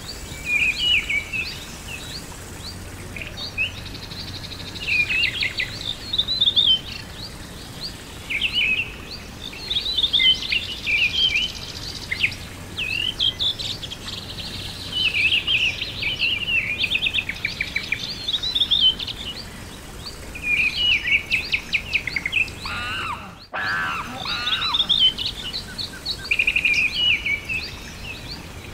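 Songbirds chirping and trilling in a continuous chorus of short, high calls over a faint steady outdoor background. There is a brief break in the sound late on.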